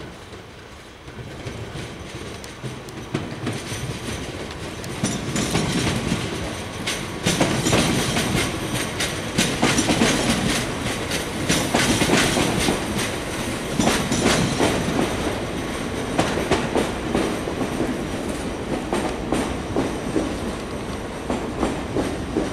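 SNCF TER regional train passing, its wheels clacking over the rail joints and points. It grows louder over the first few seconds and is loudest about halfway through.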